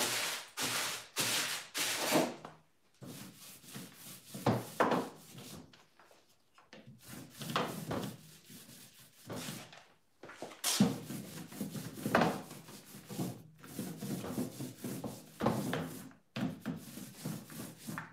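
Paintbrush strokes on a wooden cabinet door: repeated short swishing brush sounds in runs of quick back-and-forth strokes, with brief pauses between runs.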